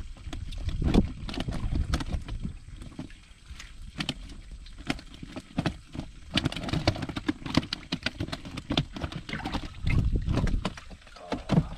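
Water splashing and sloshing in a bass boat's livewell as hands reach in and lift out a largemouth bass, with irregular sharp splashes and knocks over a low rumble.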